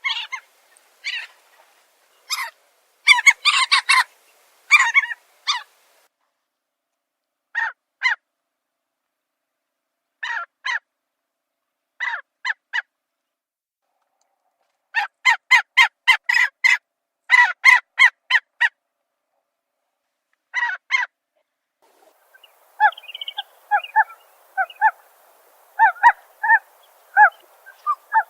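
Shorebird calls: short, sharp notes given singly and in quick clusters, including a run of about a dozen rapid notes mid-way. Near the end a fast, regular series of calls comes over a faint background hiss.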